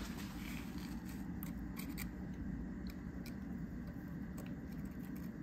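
Light metallic clicks and ticks, about a dozen scattered through, as a digital caliper is handled and set against a hole in a rusty steel car frame, over a low steady hum.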